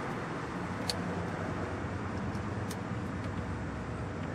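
Steady low vehicle rumble, with a few small sharp clicks of a screwdriver working the Phillips screws of a car's overhead console.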